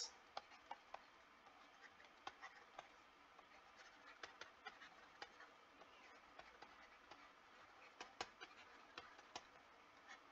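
Near silence with faint, irregular clicks and taps of a stylus on a pen tablet while a diagram is drawn.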